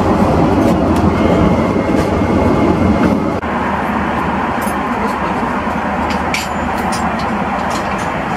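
Steady cabin noise of an Airbus A330 airliner in flight: a dense roar of engines and airflow with a low hum, and a few faint clicks. About three and a half seconds in there is a brief drop-out, and the noise then carries on slightly quieter.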